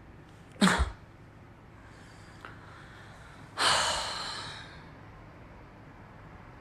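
A frightened woman's breathing: a short, sharp breath just over half a second in, then a long sigh out starting about three and a half seconds in that fades over a second.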